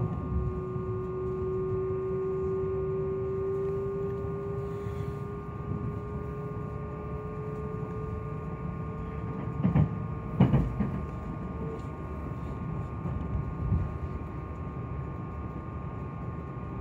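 Meitetsu 2000-series μSKY train running, heard from inside the car: a steady low rumble with a constant hum, and a motor whine that rises slowly in pitch as the train gains speed, then cuts off abruptly about twelve seconds in. Two loud knocks come close together around ten seconds in.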